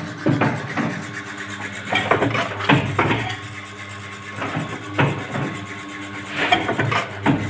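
Double-die paper plate machine running: a steady motor hum with knocks and clanks recurring every second or so as the machine cycles its dies.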